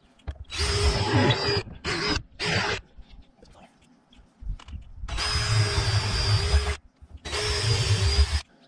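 DeWalt 20V cordless drill with a 1/4 inch bit boring bolt holes through a pontoon boat's carpeted deck for a trolling-motor mount. It runs in three short bursts, then two longer runs of a second or two each, the motor's whine holding a steady pitch.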